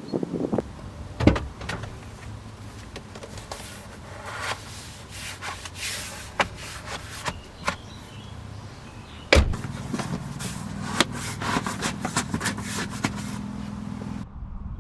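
Irregular clicks, knocks and clatter over a steady low hum, with two louder knocks, one just over a second in and one about nine seconds in.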